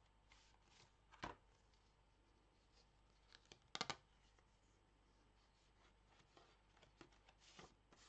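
Paper being handled: heavy paper pages and a tag rustling and sliding, with a sharp tap about a second in and a quick cluster of three or four sharp snaps near the middle, otherwise near silence.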